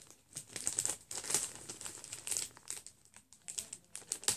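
Clear plastic bag of model-kit parts crinkling in irregular bursts as hands work it open.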